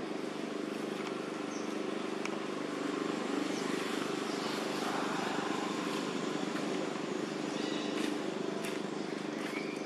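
A steady low mechanical hum, like an engine running, with a few faint short high chirps.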